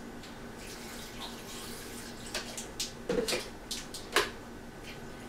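Gatorade being poured from a bottle into a blender jar, a steady stream of liquid, with a few sharp clicks and knocks in the second half.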